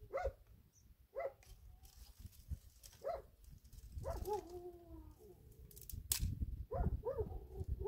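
An animal giving short, repeated pitched calls about once a second, with one longer call falling in pitch about four seconds in. A low rumble runs underneath, and there is a sharp click about six seconds in.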